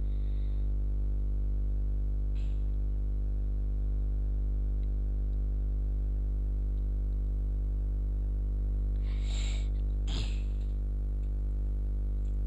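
A steady low hum made of many evenly spaced tones, strongest at the bottom near 50 Hz, with two short hissy noises about nine and ten seconds in.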